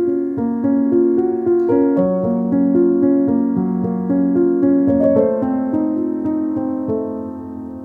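Background piano music, slow notes in a gentle melody, ending on a held chord that fades out over the last couple of seconds.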